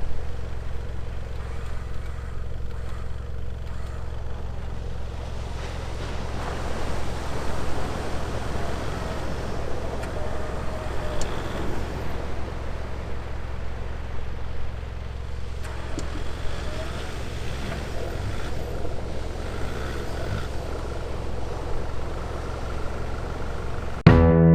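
Vehicle engine running steadily at idle, a low even hum. Music comes in right at the end.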